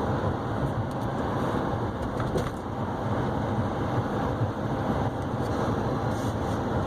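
Steady low drone of a 2015 GMC Sierra 3500 HD with the 6.6-litre Duramax diesel on the move, engine and road noise heard from inside the cab.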